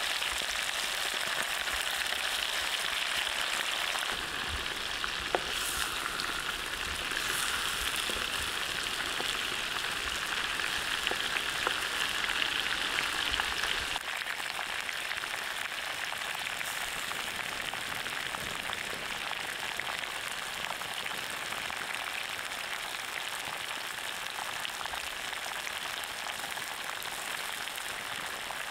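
Oil sizzling steadily in a cast-iron wok as pig-intestine rolls stuffed with enoki mushrooms fry in it, the sizzle shifting abruptly in tone twice. There is one sharp pop about five seconds in.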